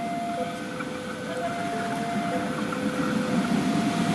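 Level-crossing warning alarm sounding two alternating tones, high then low, each about a second long. Under it is the low rumble of the approaching CC 201 diesel-electric locomotive.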